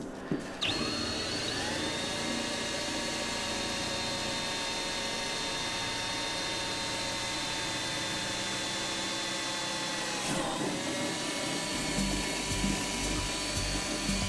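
Power drill running under load, boring a hole through a fiberglass go-kart seat. The motor spins up about half a second in and holds a steady whine, with a brief hitch around ten seconds before it runs on.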